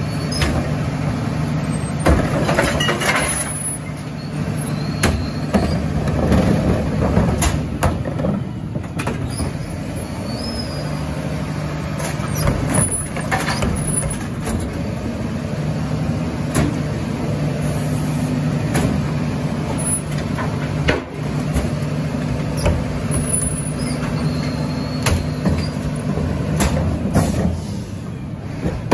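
Mack LR rear-loader garbage truck running with a steady engine note, with scattered clanks and knocks from the collection work at the rear.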